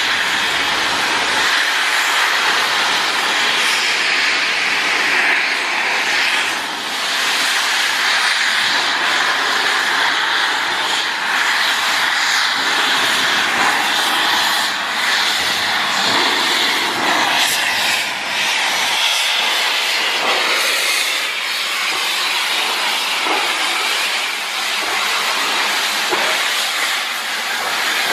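LMS Black 5 steam locomotive venting steam in a steady, loud hiss, dipping briefly now and then.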